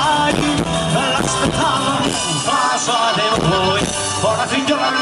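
Live band playing a Calabrian tarantella: acoustic guitars and hand percussion under a melody line that bends up and down. The bass thins out for a moment about three seconds in.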